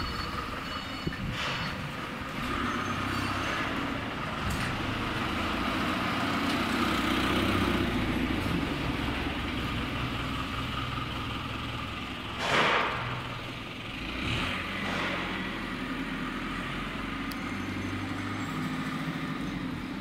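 Forklift engine running, its pitch rising and falling as it works. A short loud rush of noise about two-thirds of the way through.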